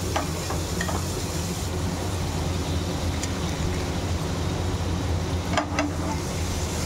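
Butter sizzling and foaming as it melts on a hot tawa, over a steady low hum, with a few light clicks: once near the start and twice more about two-thirds of the way through.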